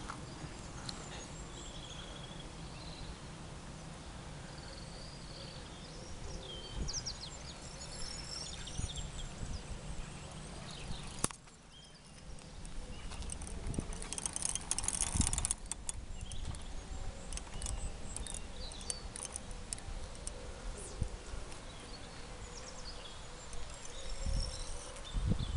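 Outdoor lakeside ambience: birds chirping over an uneven low rumble of wind on the microphone. About eleven seconds in the sound cuts sharply. A busy stretch of rustling and clicking handling noise follows around the rod and spinning reel.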